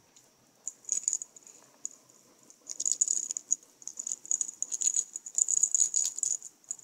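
A small bell inside a cat's toy ball jingling in quick, irregular bursts as the ball is moved about. It starts about a second in and becomes almost continuous in the second half.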